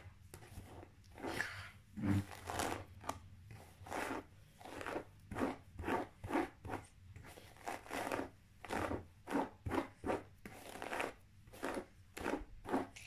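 A hairbrush drawn through long hair, a scratchy swish with each stroke, repeated about twice a second.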